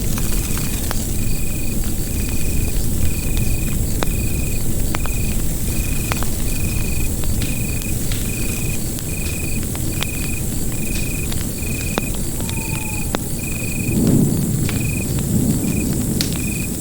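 Bonfire burning with a steady low rumble and scattered sharp crackles and pops, with a brief low surge of flame near the end. A cricket chirps steadily behind it, about once a second.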